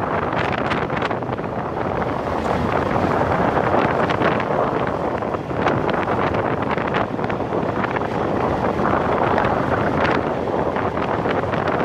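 Wind rushing over the microphone of a BMW motorcycle riding a gravel mountain track, with the bike's engine and tyres on the gravel mixed into the steady noise. Scattered small clicks come through, like stones kicked up by the tyres.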